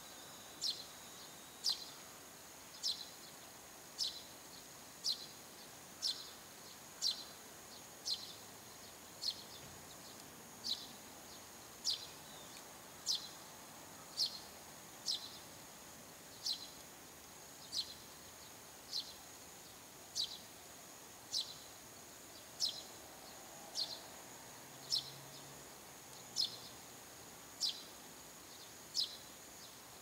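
Eurasian tree sparrow calling persistently: one short, sharp chirp repeated at an even pace of about once a second.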